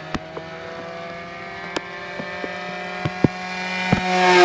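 RC model airplane's engine and propeller passing overhead, getting louder as it approaches, with the pitch starting to drop as it goes by near the end. A few sharp clicks are heard along with it.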